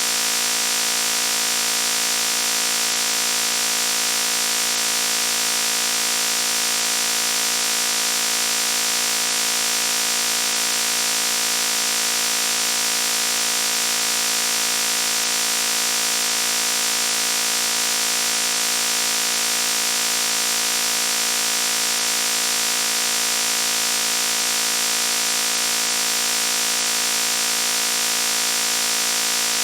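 Loud, steady buzzing noise that never changes.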